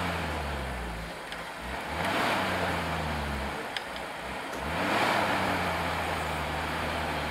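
Off-road 4x4 engine revving in three surges, its pitch climbing and dropping back each time, with a hiss that swells along with the revs.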